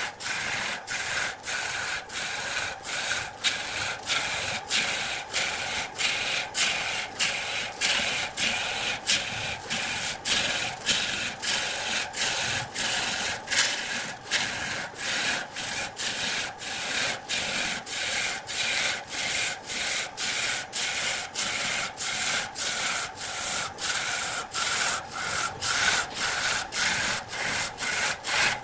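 Turning gouge cutting a spinning wooden lathe blank: a steady, loud scraping hiss of wood being peeled away, with brief regular dips about twice a second.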